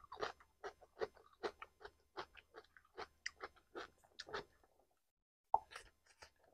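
A person chewing roast chicken close to the microphone: a steady run of short, wet, crackly chewing sounds, about two to three a second, that stops about five seconds in, followed by one sharp mouth click and a few softer chews.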